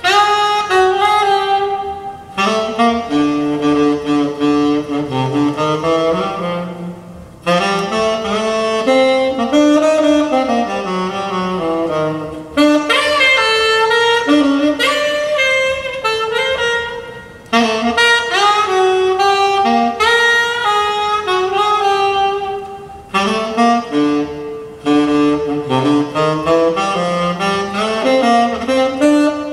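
Jazz saxophone solo with accompaniment, played back over a tube hi-fi system: Rogers loudspeakers driven by Dared tube amplifiers. The melody comes in long phrases with short breaks between them.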